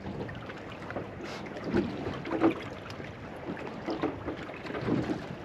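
Wind buffeting the microphone on a small fishing boat, with water slapping irregularly against the hull, a few slaps louder than the rest.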